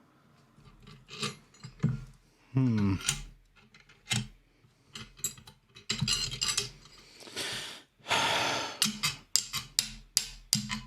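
Metal tools and parts clinking, knocking and scraping during bush-pressing work on a suspension arm. There is a short falling pitched sound about three seconds in, and a run of evenly spaced clicks near the end.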